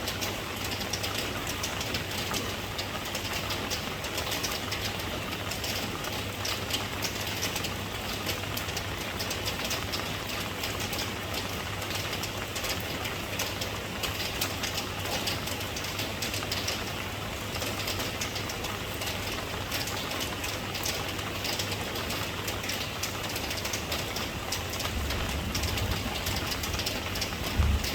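Steady rain, a dense patter of drops hissing evenly, with a low steady hum beneath. A low rumble swells in near the end.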